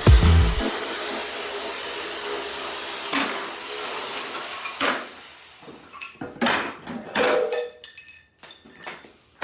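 A jigsaw's motor running steadily, then dying away around five seconds in, with a scattering of sharp wooden knocks and clatters through the second half.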